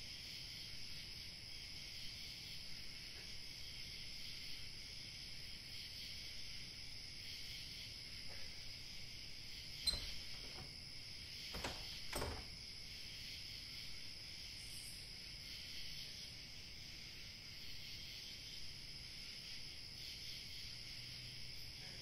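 Faint, steady high-pitched hiss of a quiet, dark room, with a few soft clicks and knocks about halfway through as a door handle is worked.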